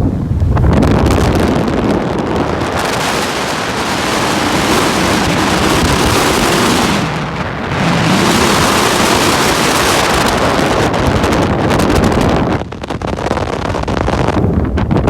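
Strong wind gusting and buffeting the microphone, easing briefly about seven seconds in and dropping back near the end.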